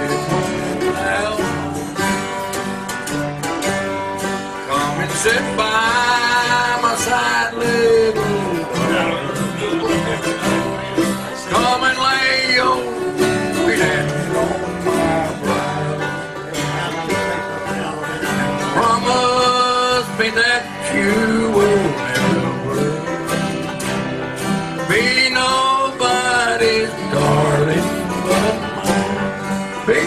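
Acoustic bluegrass band playing, with guitars and banjo under a man singing the lead.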